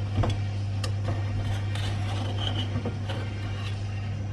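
Light scrapes and faint clicks of a table knife working around muffins in a non-stick muffin pan, over a steady low hum.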